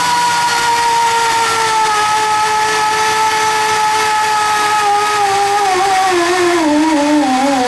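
Tube-rolling expander motor whining as it rolls a boiler tube into the tube sheet. Its pitch falls slowly throughout and wavers and drops further near the end, as the motor slows under the rising load of the tightening tube.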